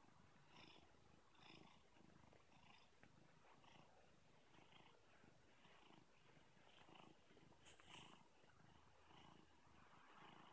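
Domestic cat purring softly and steadily while being stroked on the head, the purr swelling and easing with each breath. A brief rustle about eight seconds in.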